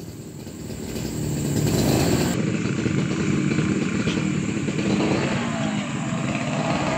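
Small motor scooter engine running at idle. Its rumble grows louder over the first two seconds, then holds steady.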